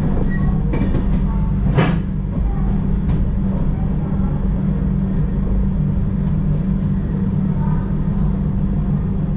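Steady low hum and rumble inside a Tejas Express passenger coach rolling slowly along a station platform, with one sharp knock about two seconds in.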